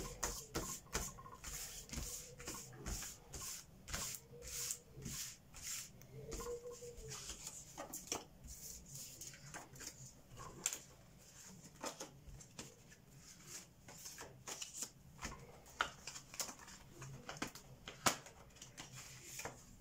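Cards being swirled and spread by hand across a desktop: irregular soft swishes and taps as the cards slide over one another and the table.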